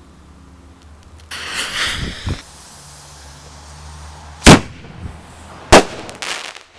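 Garden fireworks going off: a hissing whoosh about a second in, two dull thumps, then two loud, sharp bangs just over a second apart, with a short hiss after.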